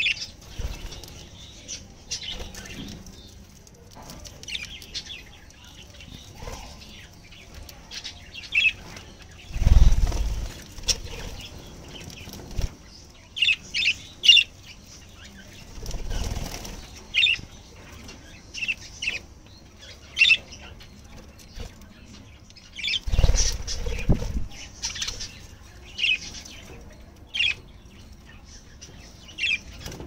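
Budgerigars chirping in short, scattered high calls. Three louder, noisier rushes of wing flapping, each lasting about a second, come a third of the way in, about halfway, and near three quarters of the way through.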